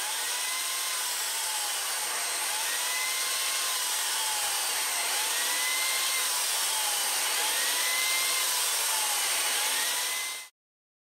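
Corded electric drill running steadily as it deburrs the rivet holes in a steel hornplate, its whine dipping and recovering in pitch every second or so. It cuts off suddenly near the end.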